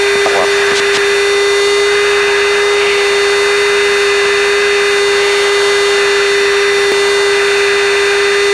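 Steady electrical hum with a strong note near 400 Hz over an even hiss, as heard on an aircraft's radio and intercom audio feed, with a faint click about seven seconds in.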